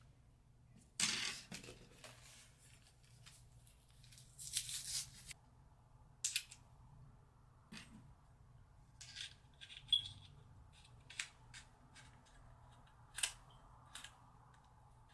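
Irregular small clicks, taps and rustling scrapes of hands handling a rifle sight while its battery is fitted and its controls are worked.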